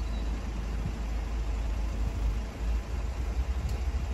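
Low, steady rumble of road vehicles idling in the queue at the closed level crossing, with no alarm tones sounding.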